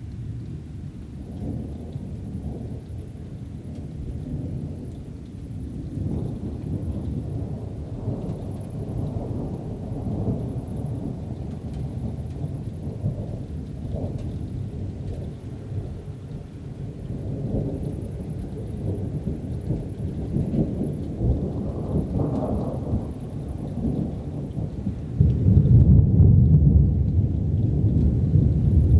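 Distant thunder of an approaching thunderstorm, rumbling continuously and slowly building. A louder, deeper roll of thunder comes near the end.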